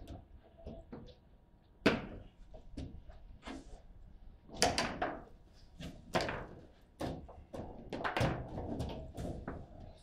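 Table football game in play: irregular sharp knocks and clacks of the rod figures striking the ball and the ball banging around the table. The loudest knock comes about two seconds in, with a quick run of shots around the middle.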